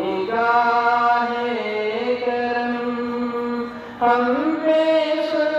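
Devotional salaam sung as a slow chant, with long held notes that slide gently between pitches. The phrase pauses briefly, and a louder new phrase begins about four seconds in.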